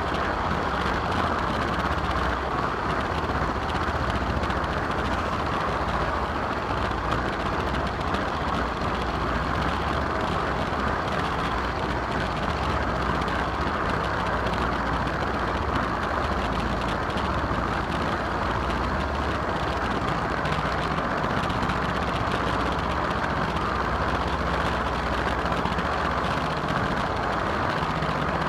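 Steady running noise of a model train heard from a camera riding on one of its coaches: the wheels rolling along the rails.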